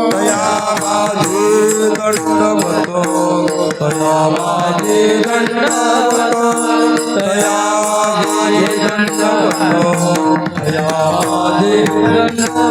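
Marathi devotional bhajan: singing voices over a repeating melody, with percussion keeping a steady beat.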